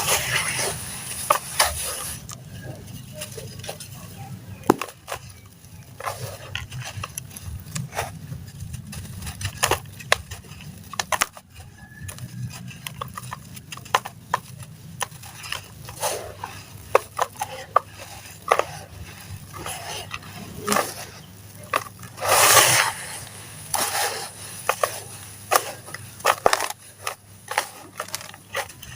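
Hand-crumbled sand-cement slabs in a tub: a steady run of gritty crunches and crackles as the pieces break up, with one louder, longer crunch about two-thirds of the way through.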